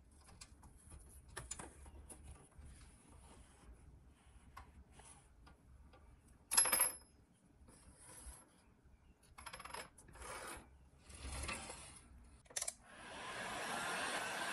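Light clicks and taps of steel parts on a rusty pressed-steel toy truck being handled, with one louder ringing metallic clink about six and a half seconds in. Near the end a heat gun starts up, its blower rising into a steady rushing hiss.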